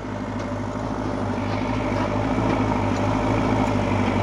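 Heavy diesel engine running steadily at an even speed, a constant low drone.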